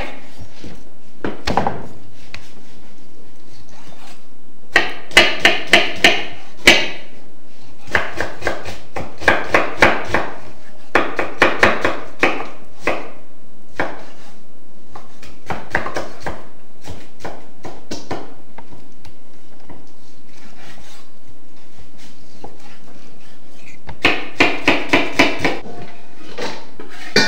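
Knife chopping raw beef, and onion, on a wooden cutting board: runs of quick, sharp knocks, several a second, broken by pauses.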